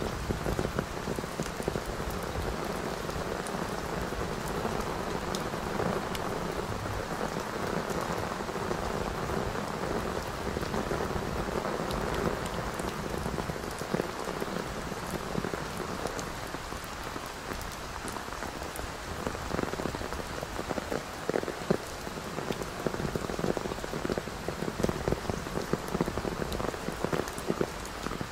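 Steady rain falling: a continuous hiss full of separate drop impacts.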